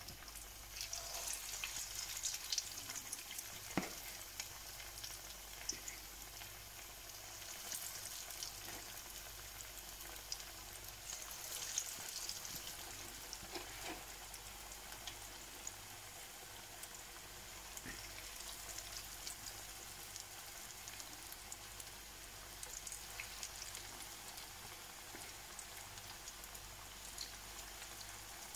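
Gram-flour-battered cod pieces deep-frying in hot oil: a steady high sizzle with scattered crackles and pops.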